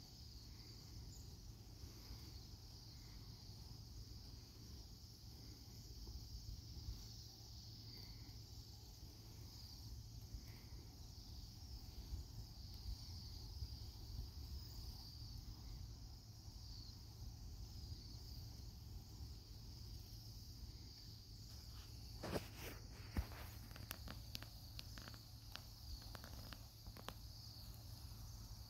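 A large flock of Bohemian waxwings giving a faint, continuous chorus of high, thin trilling calls. A few sharp clicks and knocks come about three-quarters of the way through.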